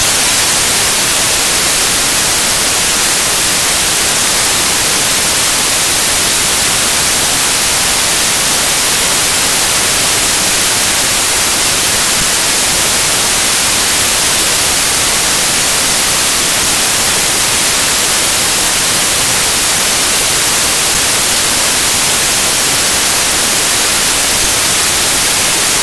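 Loud, steady static hiss, strongest in the highs, that cuts off suddenly near the end: digital noise from a corrupted stretch of the file.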